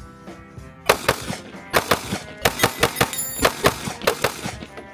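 About a dozen rapid gunshots fired in quick groups at steel targets, with the clang of hits on the steel, starting about a second in and stopping shortly before the end, over background music.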